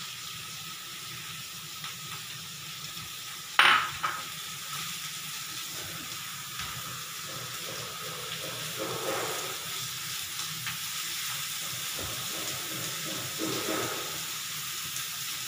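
Chopped vegetables sizzling steadily in oil in a kadhai on a gas stove, stirred with a spatula that scrapes the pan now and then. A single sharp knock about three and a half seconds in.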